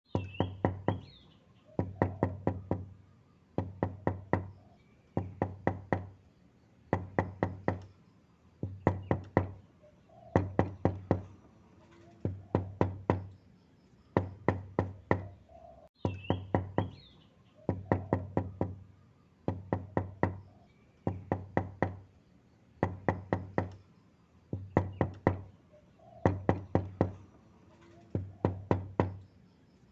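Knocking on a wooden door: quick groups of three to five raps, a new group about every two seconds, each rap with a strong low thud.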